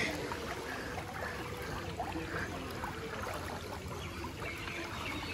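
Floodwater sloshing and swishing around legs as people wade through waist-deep water, with small splashes here and there.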